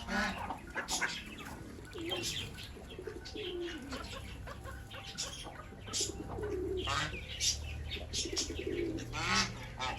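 Pigeons cooing in low, wavering phrases, twice over several seconds, amid scattered short chirps and calls from other farm birds.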